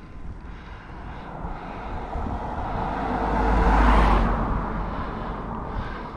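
A motor vehicle passing by on the road: its noise swells to a peak about four seconds in, then fades away.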